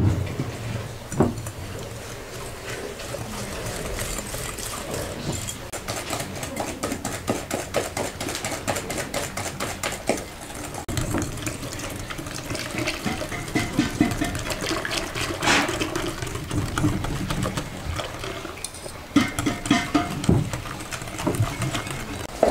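Wire whisk beating eggs, sugar and milk in a glass bowl: rapid clicking and scraping of the wires against the glass, with milk poured in partway through.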